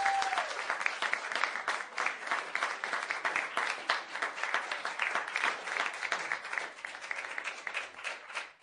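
Canned studio-audience applause: many hands clapping densely, tapering slightly before cutting off at the very end. A steady tone is heard underneath for the first half second.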